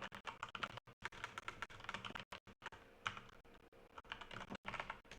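Typing on a computer keyboard: quick, irregular runs of key clicks.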